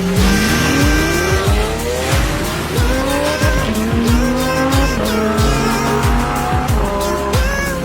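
Electronic background music with a heavy booming bass beat and sliding, gliding pitched lines, including a long rise about a second in.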